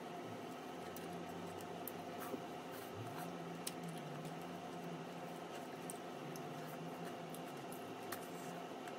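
Wooden chopsticks handling braised chicken in a ceramic bowl: a few light clicks and soft squishes over a low, steady room hum.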